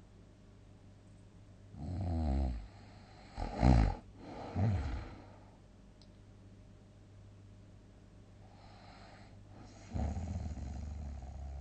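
A person snoring loudly: a rattling snore about two seconds in, the loudest, short snore near four seconds with a shorter one just after, then a long pause with a soft breath, and another snore starting near the end.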